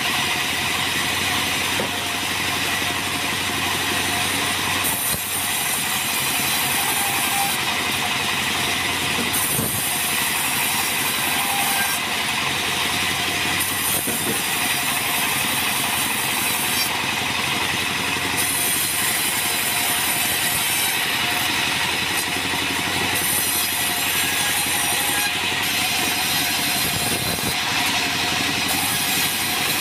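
Sawmill bandsaw running steadily, its blade cutting lengthwise through an acacia log as it is fed across the table.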